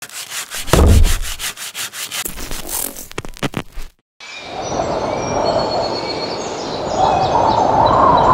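Quick, regular rubbing strokes on wood, about seven a second, with a low thump about a second in. After a brief break comes a steady outdoor rush with birds chirping.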